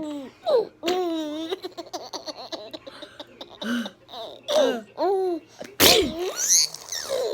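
A baby laughing and squealing in short bursts, with one loud, rough vocal burst about six seconds in, an adult's fake burp.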